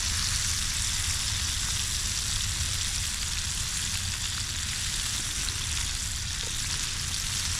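Walleye nuggets frying in hot oil: a steady sizzle, with a low rumble underneath.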